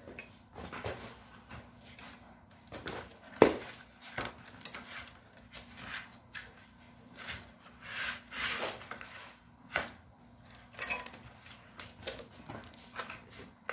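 Hands handling a Hover-1 Buggy's metal frame tubes and small plastic parts while fitting a screw: scattered small clicks, taps and scrapes, with one sharper knock about three and a half seconds in.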